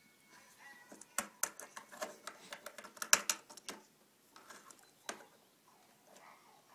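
Small plastic toy figures handled and set down on a tabletop: a quick run of sharp clicks and taps starting about a second in and lasting a couple of seconds, then a single knock.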